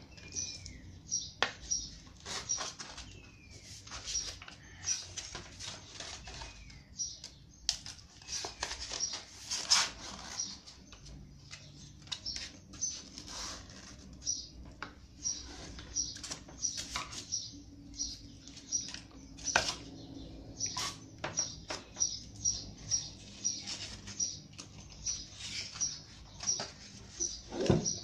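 Sandpaper being handled and clamped onto the orbital sander's pad: paper rustling and sharp plastic and metal clicks, the loudest about ten seconds in. Behind it a bird chirps steadily, about two to three high chirps a second, with a few lower gliding calls.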